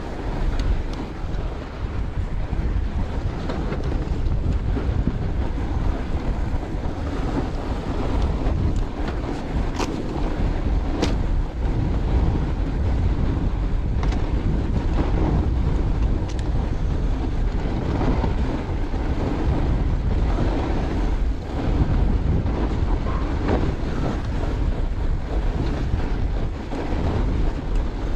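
Steady wind rush on the camera microphone of a fatbike riding along a snowy trail, with two sharp clicks from the bike about ten and eleven seconds in.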